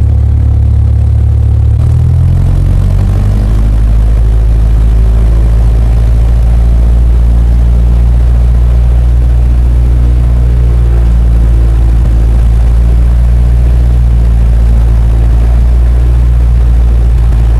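Airplane engine drone, a loud steady low hum that shifts up in pitch about two seconds in and then holds.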